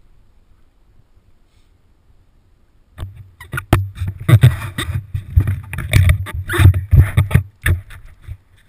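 Near quiet for about three seconds, then a run of splashing steps through shallow water, mixed with sharp knocks and rubbing as a body-worn camera brushes against a wetsuit.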